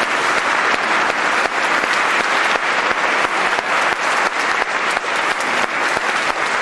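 Audience applauding at the end of a song: many hands clapping in a steady, dense patter.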